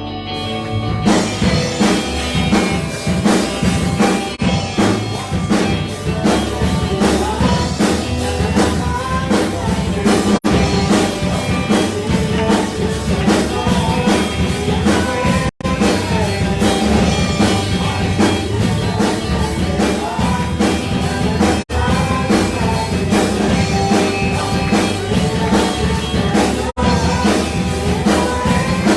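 Live worship band music with drum kit, bass and guitar under a wavering melody line. The sound drops out for an instant a few times.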